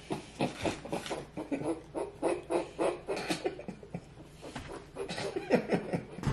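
Men laughing in short, breathy, stifled bursts, a few a second, with no words.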